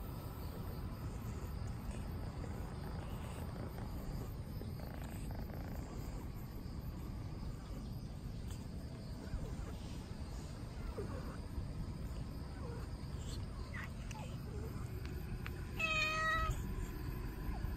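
A grey-and-white cat meows once, a short clear meow near the end, over a steady low background rumble.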